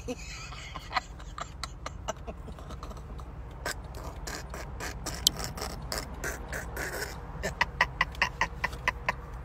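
A woman laughing hard in short, breathy bursts, quickening near the end, over the steady low rumble of a car driving.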